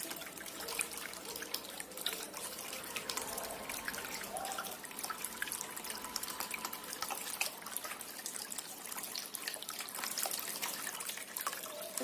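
Water trickling and splashing steadily in a small cement tabletop fountain, with many small drips and droplet splashes.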